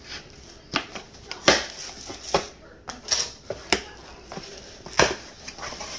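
Cardboard shipping box being pulled open by hand, its taped flaps tearing free: a run of sharp cardboard crackles and knocks, the loudest about a second and a half in and again about five seconds in.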